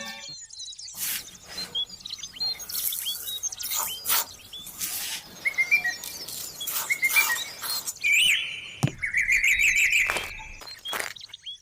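Birds chirping and calling, with a fast run of repeated chirps about eight seconds in, among short sharp clicks.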